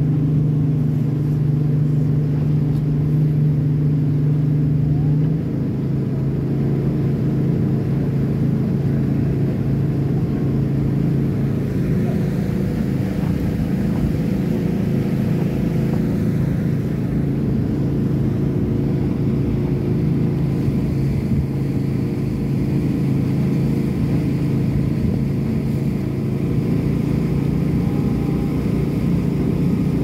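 RIB boat's engine running steadily under way, with low rumble from the hull on the water. About five seconds in, the engine note eases and gets a little quieter, then holds steady.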